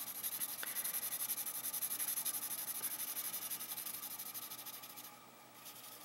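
Pencil shading on paper: rapid back-and-forth scratching strokes of the lead. The strokes stop about five seconds in.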